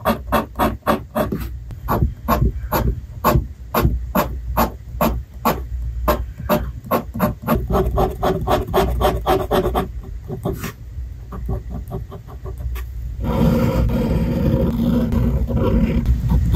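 Fountain pen nib scratching across paper in quick short hatching strokes, about four a second. The strokes thin out about ten seconds in, and from about thirteen seconds in the scratching becomes denser and more continuous as longer lines are drawn.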